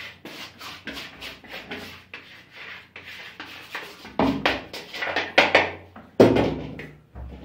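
Sugar being handled and poured out in a kitchen: a run of light clicks and rustles, then louder noisy rushes from about four seconds in, and a sudden heavier knock about six seconds in.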